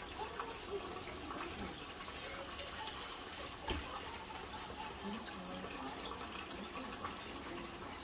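Kitchen sink faucet running steadily, with a single knock about three and a half seconds in.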